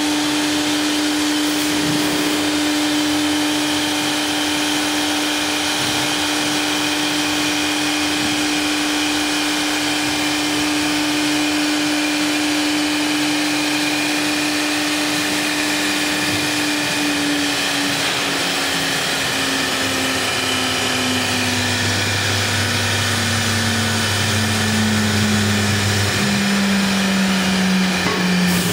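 CNC router running: the air-cooled HSD spindle, the vacuum table's pump and the dust collector together make a steady whine and whoosh. One steady tone in it slowly falls in pitch over the last ten seconds or so, and a deeper hum joins for a few seconds in that stretch.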